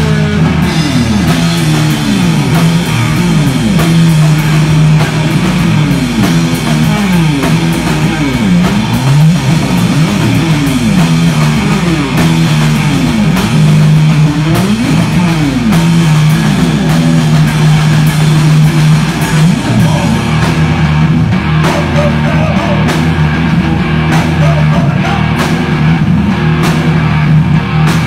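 Live hard rock band playing loud: electric guitar, electric bass and drum kit, with repeated swooping slides up and down in pitch in the low strings. Cymbal strikes stand out more in the last third.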